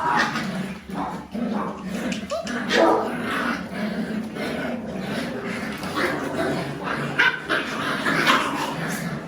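Puppies whimpering and yipping in a continuous run of short, high calls.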